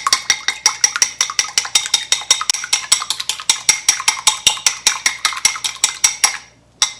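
An egg being beaten in a cup: a utensil clicking rapidly and evenly against the cup's sides, about seven strokes a second, stopping shortly before the end.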